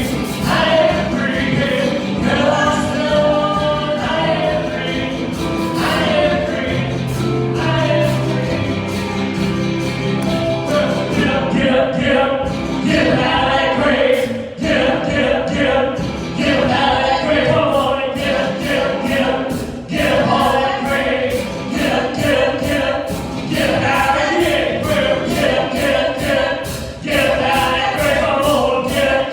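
Gospel choir singing a hymn with accompaniment, in held sung phrases that break every few seconds.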